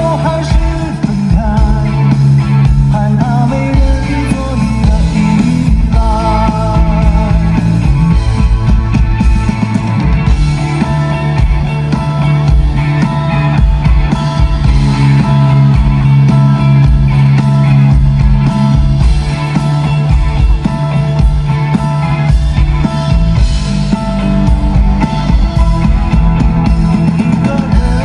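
Live band performance of a pop ballad: a male singer's voice over electric guitar, keyboard and drum kit, through a loud sound system, picked up from within the audience.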